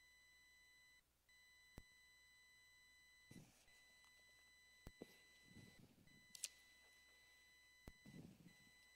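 Near silence: a faint, steady, high-pitched electronic whine, cut off briefly a few times, with a soft click about every three seconds and a few faint rustles.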